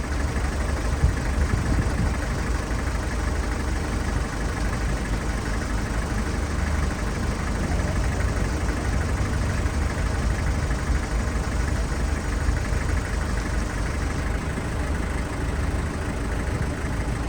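Willys Jeep CJ5's engine running steadily, with a rapid low exhaust pulse.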